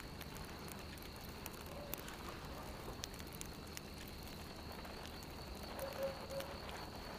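Quiet background ambience: a faint steady high-pitched tone over a low hiss, with scattered faint ticks.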